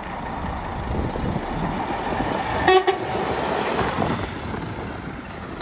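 2015 Renault T460 tractor unit's diesel engine running as the truck drives past. Nearly three seconds in, a horn gives a brief double toot, the loudest sound here.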